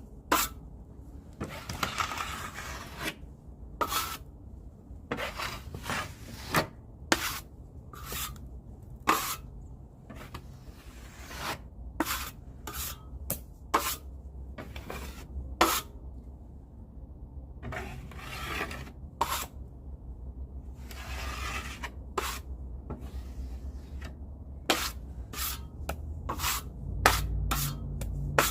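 Drywall taping knife scraping joint compound off the wall and back into its container: a long run of short sharp scrapes and clicks, with a few longer strokes.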